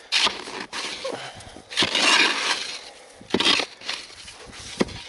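Shovel digging into snow-covered ground: about four short crunching, scraping strokes.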